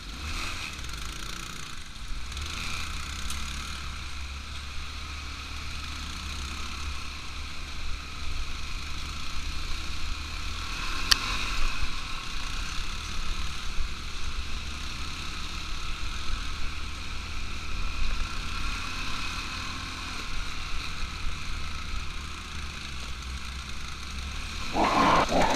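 ATV engine running steadily during a ride, with a sharp click about eleven seconds in and a louder burst of sound near the end.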